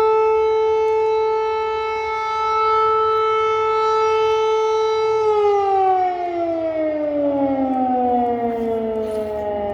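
Civil defence air-raid siren wailing: one steady, held tone for about five seconds, then sliding down in pitch through the rest.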